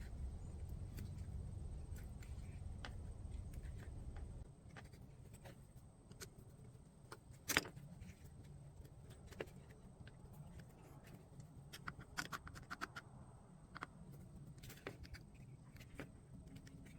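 Scattered light clicks, taps and scrapes of small metal tools and chainsaw parts being handled, with one sharper click about seven and a half seconds in. A low hum stops about four seconds in.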